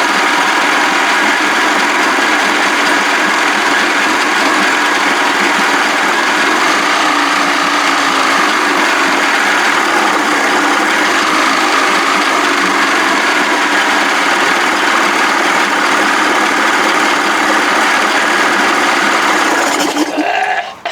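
Evinrude 55 hp two-stroke outboard motor running steadily, on only the fuel left in its carburettors, then stopping about twenty seconds in.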